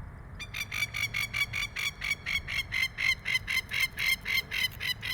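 An animal calling in a fast, even series of short high notes, about five a second, starting about half a second in.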